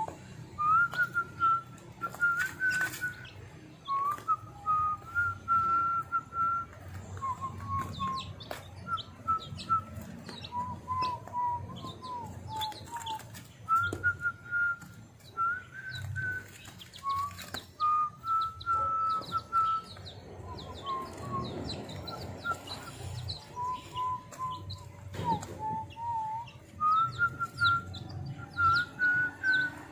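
Week-old chicks peeping: many short, high cheeps throughout. Under them runs a slow melody of held, whistle-like notes that step up and down in pitch, with scattered light clicks of beaks pecking at feed.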